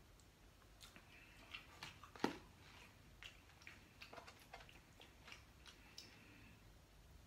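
A person chewing food close to the microphone: soft, irregular wet mouth clicks and smacks, with one sharper smack a little over two seconds in.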